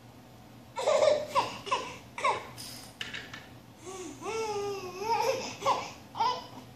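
A baby squealing, giggling and babbling in a string of short high calls, with a longer wavering babble about four seconds in.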